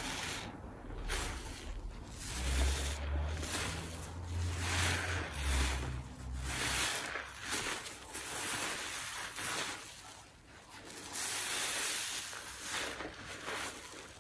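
Soapy kitchen sponge squeezed and kneaded by gloved hands in a tub of thick dish-soap suds: wet squelching and hissing foam that comes in repeated swells. A low rumble runs under it from about two to seven seconds in.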